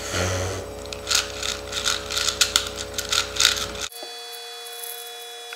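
A 4x4 puzzle cube's plastic layers being turned by hand: a brief rustle, then a quick, irregular run of clicks and rattles that stops abruptly about four seconds in.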